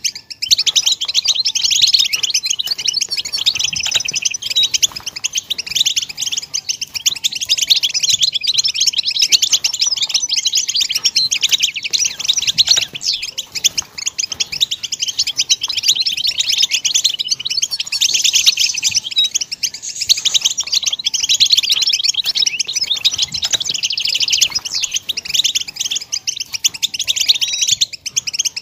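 European goldfinch song: a continuous, fast run of twittering and trilled notes with no real pauses.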